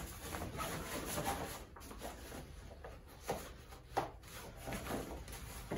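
Rubbing and rustling of a synthetic bagpipe bag as a stock is pushed from the inside through its lubricated collar, with two knocks about halfway through.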